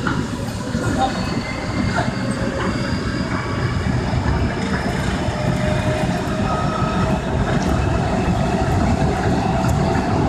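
KORAIL Line 3 electric subway train running, with a motor whine that rises slowly in pitch as it gathers speed and a few clicks from the wheels over the track.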